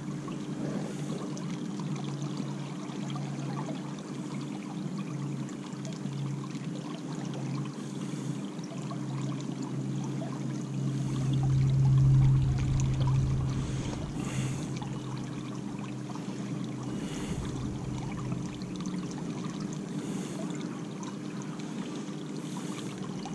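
River water running and trickling past the canoe, over a steady low hum that swells for a few seconds about halfway through.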